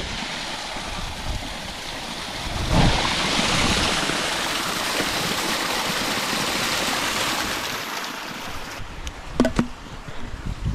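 Spring water rushing and splashing close to the microphone. It grows louder from about three seconds in and eases off near the end, where there are a couple of short knocks.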